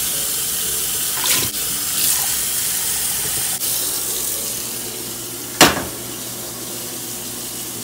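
Kitchen tap water running into a small stainless-steel saucepan in a steel sink, then a single sharp clank as the pot is set down on a gas stove's burner grate. A steady air-conditioner hum runs underneath.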